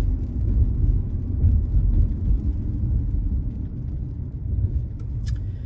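Steady low rumble of a car driving, heard from inside the cabin: road and engine noise. A couple of faint ticks come near the end.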